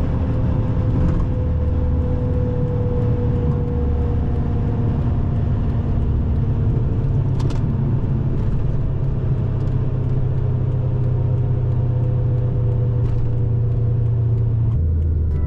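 Chrysler 300C's 5.7-litre HEMI V8 running while the car drives, with road noise. It makes a steady low drone whose pitch eases slowly lower.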